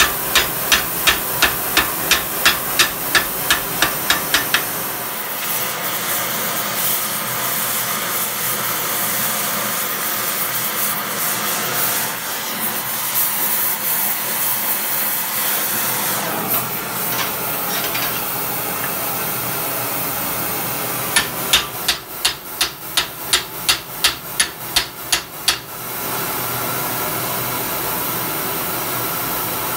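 Hand hammer striking a hot rivet on an anvil, about three blows a second, for the first few seconds; then the steady hiss of an oxy-acetylene torch heating the next rivet. A second quick run of hammer blows comes a little after 20 s, and the torch hiss returns for the last few seconds.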